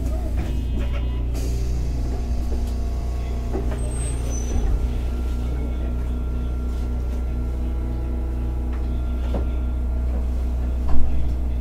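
Hakodate City Transportation Bureau 3000-series tram running, heard from on board: a steady low rumble of the motors and wheels on the rails, with a faint whine and a few light clicks. A single sharp knock sounds near the end.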